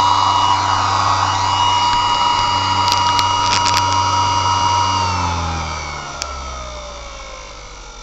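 3D-printed ten-bladed centrifugal blower fan and its 18-volt DC motor running with a steady whine and low hum. About five seconds in the power is cut and the whine falls steadily in pitch as the lightweight fan winds down. A few sharp clicks a little after three seconds in and again near six seconds.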